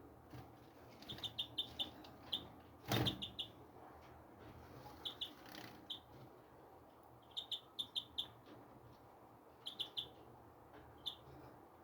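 Small birds chirping: short high chirps in quick runs of two to four, repeating every second or so, with a single sharp knock about three seconds in.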